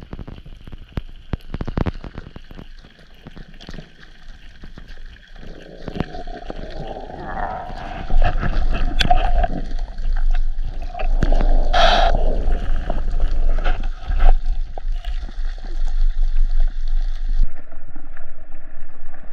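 Underwater sound picked up by the diver's camera: water gurgling and clicking. About six seconds in a steady hum with a low rumble comes up and grows louder.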